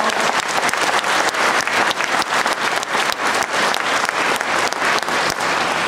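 A hall audience applauding: many hands clapping at a steady, dense level throughout.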